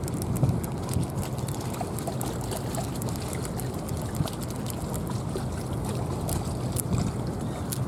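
River water lapping and splashing at the shore over a steady low rumble, with many small irregular clicks and splashes throughout.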